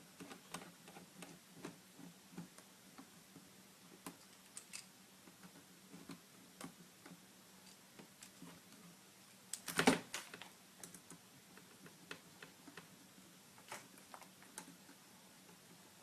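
Faint, scattered clicks and taps of a mini screwdriver working the small screws that hold a laptop's LCD panel in its frame. A louder cluster of clicks comes about ten seconds in.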